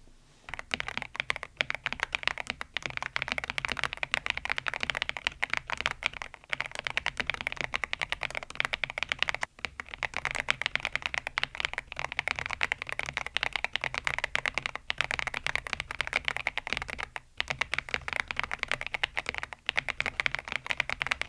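Fast, continuous typing on a YUNZII B87 tenkeyless mechanical keyboard with round MOA-profile keycaps, keystrokes clicking in quick runs with a few short pauses.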